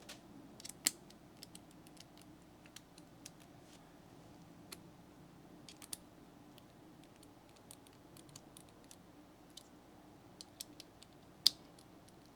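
Scattered light clicks and taps of small tools and parts being handled and set down, with a sharper click about a second in and the loudest one near the end.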